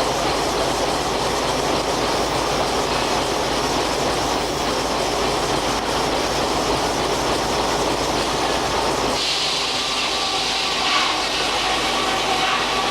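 Steam-powered circular sawmill running: a steady mechanical rumble, then about nine seconds in the low rumble drops away and a high whine takes over.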